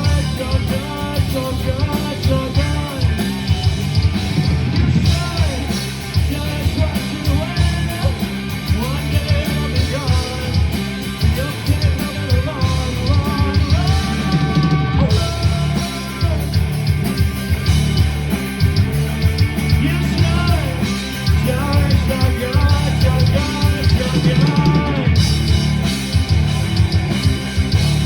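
Rock music with a sung vocal over guitar and a driving drum beat.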